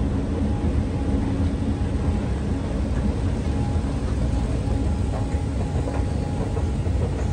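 Steady low rumble with a constant mechanical hum, unchanging throughout.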